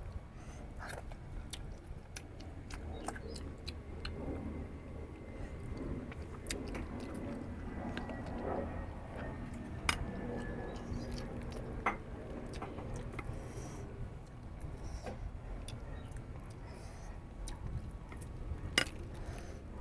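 Close-miked eating of goat head: chewing and gnawing on meat and bone, with sharp clicks and clinks, the loudest about halfway through, a couple of seconds later and near the end.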